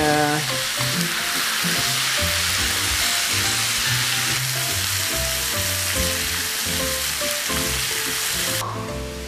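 Tiger prawns coated in chilli-shallot spice paste sizzling steadily as they grill and are basted, the sizzle cutting off suddenly near the end. Background music plays underneath.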